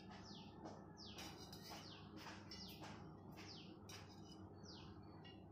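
Faint bird chirping: a string of short, high calls, each sliding downward in pitch, about two a second, over a low steady hum.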